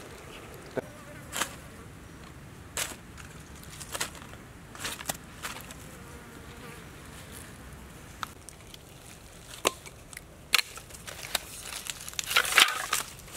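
Scattered light knocks and rustles of hands setting prawns, potatoes and tomatoes down on palm leaves beside a large fish, then a denser crackling of dry leaves and twigs underfoot about twelve seconds in, the loudest part.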